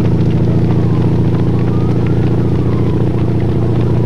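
Motor vehicle engine running steadily at an even speed, a loud low drone close to the microphone.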